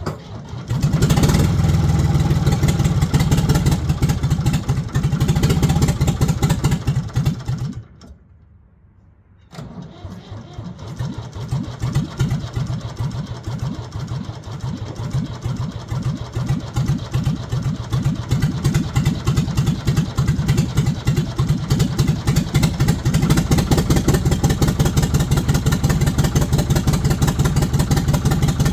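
A 1973 Ford 4500 industrial backhoe's diesel engine is started and runs with a steady rhythmic beat. It stops about eight seconds in, then starts again a second or so later and settles into steady running, growing louder over the next several seconds.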